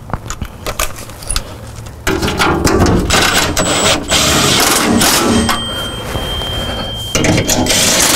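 Makita 18V cordless impact driver running 10 mm bolts into an aluminium underbody shield: a few light clicks, then from about two seconds in the driver's rapid hammering, which eases off midway and grows louder again near the end.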